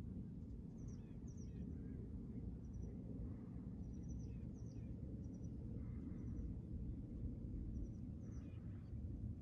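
Small birds chirping, with many short high notes scattered through, over a steady low background rumble.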